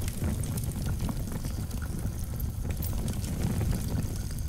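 Fire sound effect: a steady low rush of burning flames with frequent small crackles.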